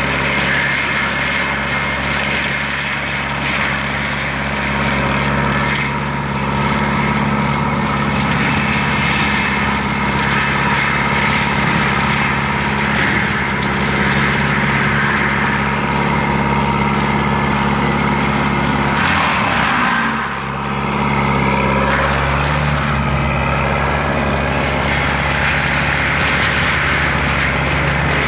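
Lamtrac LTR6125 tracked carrier's diesel engine running steadily under load, driving a Denis Cimaf 180D forestry mulcher head. There is one short drop in level about twenty seconds in.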